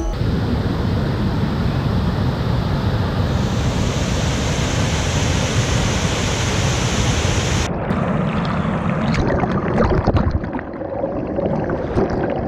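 Waterfall: the steady roar of water pouring down. About eight seconds in the sound abruptly turns duller, with a few faint knocks and clicks over it.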